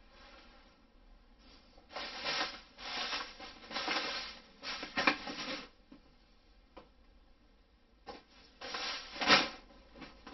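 Plastic bag of perlite rustling and crinkling as it is picked up and moved, with plastic plant pots and trays being shifted around. Two spells of rustling: one of a few seconds starting about two seconds in, and a shorter, louder one near the end, with a few light clicks between.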